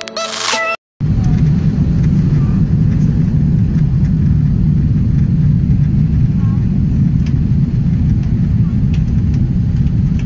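Jet airliner cabin noise from a window seat on approach to landing: a steady low rumble of engines and airflow. It starts about a second in, after a brief electronic music sting cuts off.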